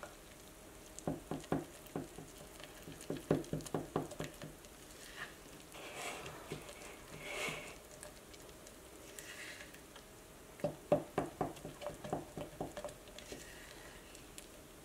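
Spatula stirring a thick flour-and-water sourdough starter in a jar. Quick runs of knocks and scrapes against the sides come in three bursts, about a second in, around three to four seconds in and near the end, with softer swishes in between.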